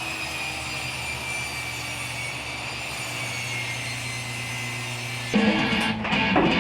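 A power tool running steadily, its whine sinking slowly in pitch. About five seconds in it gives way abruptly to strummed guitar music.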